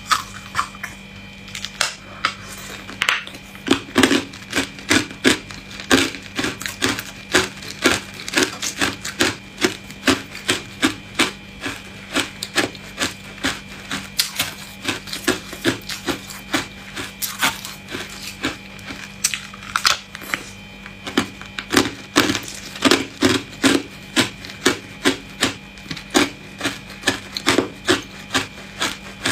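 Hard ice cubes being bitten and chewed close to the microphone: a long run of sharp crunching cracks, about two a second.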